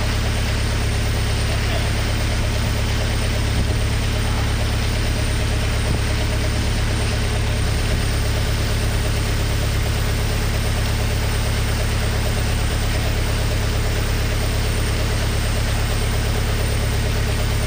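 Mercedes-Benz OM616 2.4-litre four-cylinder diesel engine running steadily, with no revving, driving a surface drive on test.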